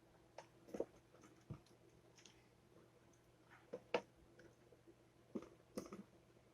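Faint, scattered light clicks and knocks, about eight in all with the loudest about four seconds in, from hands handling a toaster and its parts.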